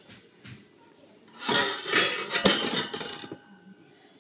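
A toddler banging and scraping a long-handled utensil against stainless steel pots: after a quiet first second or so, a flurry of metallic clanks with ringing, one sharp hit standing out, then it dies away.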